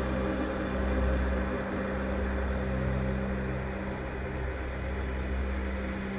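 Ambient background music: a steady low drone of held tones.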